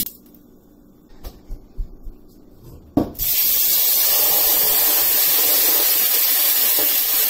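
A knock about three seconds in, then a blended tomato and onion paste poured into hot oil and ghee in a stainless steel pan sets off a loud, steady sizzle.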